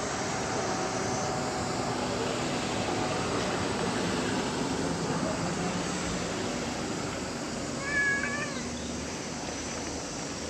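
A domestic cat meows once, a short wavering call about eight seconds in, over steady outdoor background noise.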